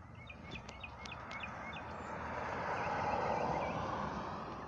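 A vehicle passes on the road, its rushing noise swelling to a peak about three seconds in and fading again, while a small bird chirps repeatedly.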